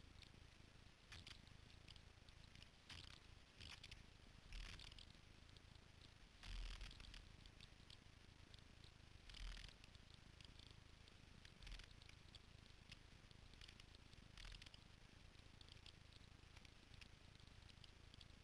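Near silence broken by faint, scattered crackling and rustling of brush and dead branches as riders drag a dirt bike over a fallen tree, about eight short bursts, the loudest about six and a half seconds in. No engine is running.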